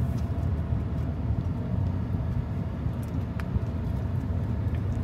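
Steady low rumble inside a car's cabin, with a few faint clicks.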